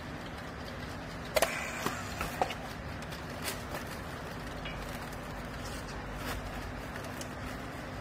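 Sharp clicks and knocks of a handheld battery strapping tool and plastic baling strap being worked, loudest in a quick cluster about a second and a half in, with a few fainter clicks later. A steady low machine hum runs under them.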